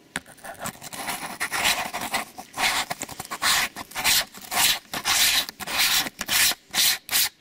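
Repeated loud scraping and rubbing as a fisheye lens is twisted by hand onto the front thread of a camera lens, about two strokes a second.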